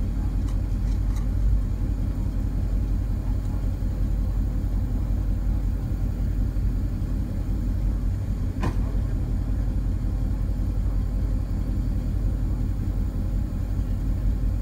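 Tow truck's engine idling with a steady low rumble, and a single sharp click about two-thirds of the way in.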